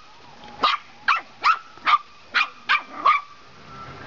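An eight-week-old Patterdale terrier puppy barking: seven short, high-pitched barks about two a second, stopping about three seconds in.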